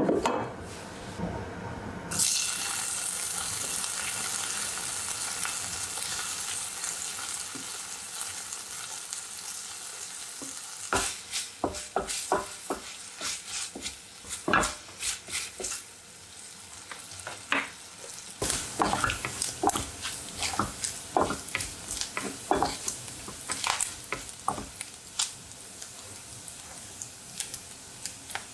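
Finely chopped bacon sizzling in hot oil in a glass saucepan; the frying hiss starts suddenly about two seconds in as the bacon goes into the pan. From about eleven seconds on, a wooden spatula stirs it, with many light knocks and scrapes against the pan.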